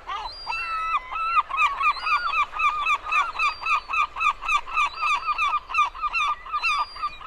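A large bird calling loudly: a few drawn-out calls, then a fast run of short honking calls, about five a second.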